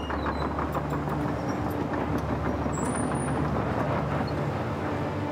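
A heavy vehicle's engine running steadily outside, a low drone that holds level throughout.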